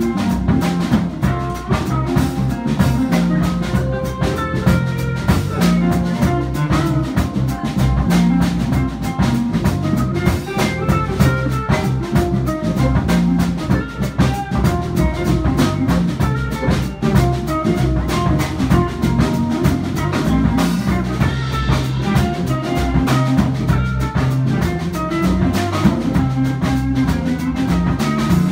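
Live band playing an instrumental with drum kit and electric guitar. The guitar is a Fender Stratocaster with David Allen Voodoo 69 pickups, played through a Carvin amplifier.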